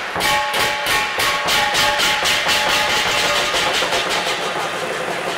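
Chinese lion-dance percussion: drum and cymbals striking in a steady fast beat, about three to four strokes a second, with ringing metallic tones held underneath.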